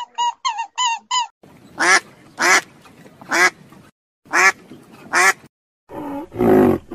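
A quick run of short, high, squeaky animal calls, then, after a cut, an animal giving five short, harsh, quack-like calls spaced out about a second apart.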